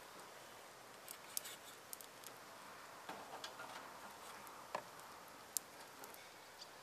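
Faint steady hiss with a scattering of light, irregular clicks and ticks.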